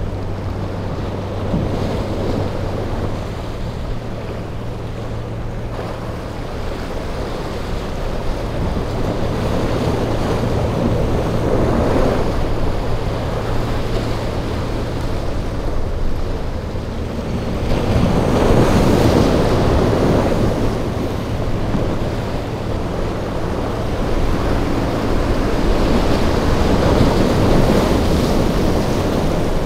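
Breaking surf and gusts of wind buffeting the microphone, swelling louder several times, with the low hum of boat outboard engines running through rough water underneath.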